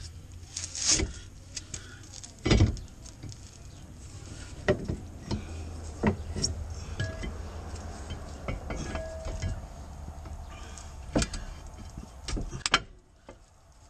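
Metal clinks and knocks from a brake caliper being handled and seated over a front brake rotor, with the loudest knock about two and a half seconds in and a few sharp clicks scattered after it.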